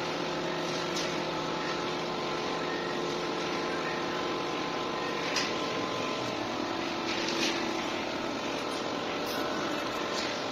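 Steady mechanical hum with several even tones, with a couple of faint clicks about halfway through.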